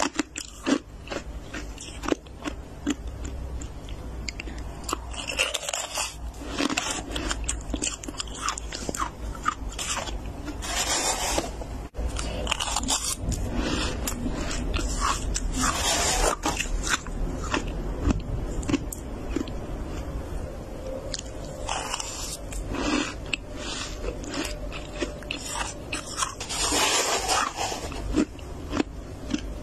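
Flaky freezer frost being scraped and crunched: a dense run of dry crackling crunches, with a longer scraping stroke through the frost about every five or six seconds.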